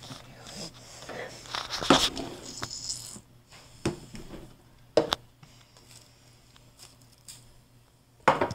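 Cups being shuffled on a tabletop in a shell game: sliding and scraping, with several sharp knocks as they are set down, the loudest near the end.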